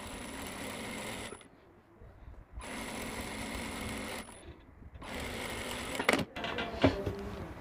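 Typical industrial sewing machine stitching in three short runs with brief stops between, sewing a narrow tuck along a fold of fabric. A couple of sharp knocks come about six seconds in.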